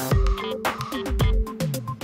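Electronic background music with a steady drum beat and bass.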